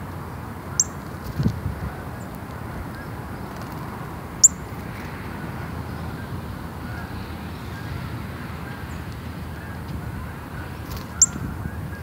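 Small songbird giving short, sharp, high chip notes three times, several seconds apart, over a steady low rumble, with a low thump about a second and a half in.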